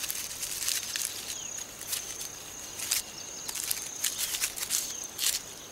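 Tarantula hawk wasp dragging a paralysed baboon spider over gritty, stony soil: irregular dry scratching and rustling, a scrape every half second or so, over a steady high-pitched tone.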